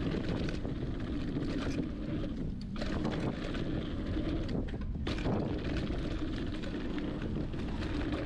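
Wind buffeting the camera microphone while a hardtail mountain bike rolls down a dirt trail, with tyre noise and scattered clicks and rattles from the bike. The rush drops away briefly twice.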